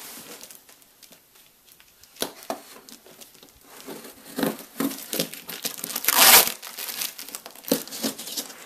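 A shipping box being opened by hand: packing material crinkling and rustling in short bursts, with a loud tearing sound about six seconds in.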